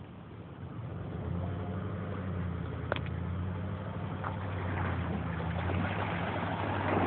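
An engine running steadily with a low hum, which comes in and grows louder about a second in. There is one sharp click about three seconds in.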